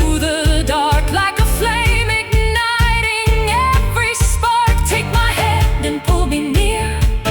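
Tango-style pop song in a passage with no lyrics: a steady bass beat under a wavering lead melody with vibrato.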